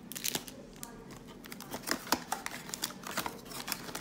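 Foil trading-card pack wrappers and a cardboard card box being handled, giving an irregular scatter of sharp crinkles and clicks.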